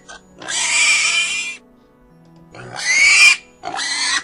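Recorded pig calls, each half a second to a second long, coming in a repeating pattern over quiet, steady background music.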